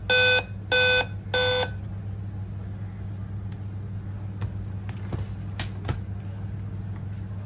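Dell laptop's startup beep code: three short, evenly spaced electronic beeps in the first couple of seconds, the end of a five-beep sequence. Five beeps from a Dell signals a CMOS battery problem. A steady low hum continues after the beeps stop.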